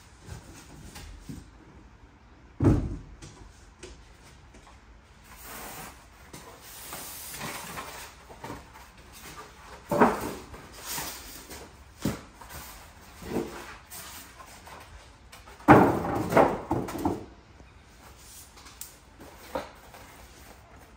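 Polystyrene foam packing pieces and cardboard packaging being pulled off a boxed flat-screen TV and handled: scattered knocks, scrapes and rustles. There is a dull thump about three seconds in and the loudest cluster of knocks about three-quarters of the way through.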